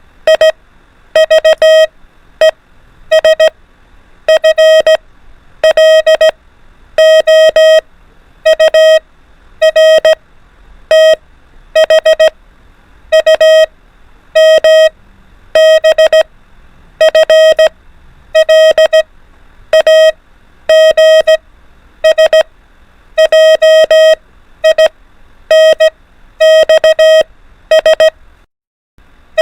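Morse code practice tones sent at 24 words per minute: a steady mid-pitched beep keyed in quick dots and dashes, one letter of the alphabet at a time, with a pause of about a second between letters.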